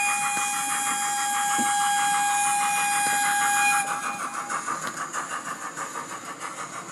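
Sound-fitted OO gauge model steam locomotive blowing a long steam whistle with hiss over steady chuffing; the whistle cuts off about four seconds in, leaving rhythmic chuffing at about four beats a second that fades as the train passes.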